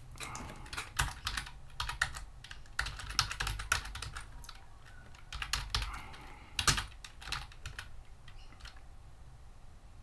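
Typing on a computer keyboard: quick, irregular runs of key clicks that thin out after about seven seconds, with a few last taps near the end.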